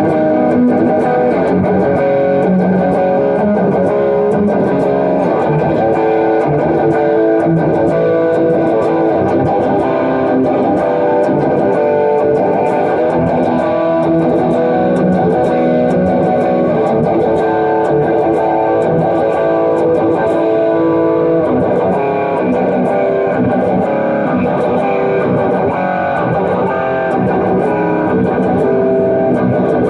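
Electric guitar tuned to drop B, C-sharp standard with the low sixth string dropped to B, played continuously.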